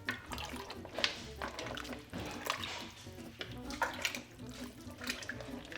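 Irregular splashing and sloshing of liquid in a stock pot of fish stew as clams, mussels and their juice are tipped in and stirred.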